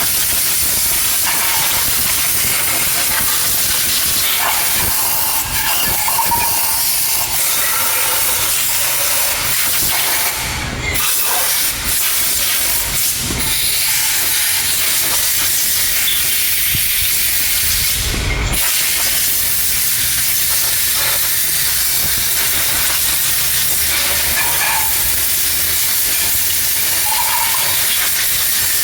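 A loud, steady hiss like a pressurised jet of air or spray, briefly dipping twice.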